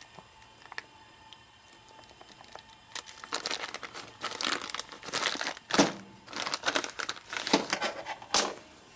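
Plastic bearing packaging being crinkled and torn open: a few light clicks, then a run of rustling, crackling bursts from about three seconds in.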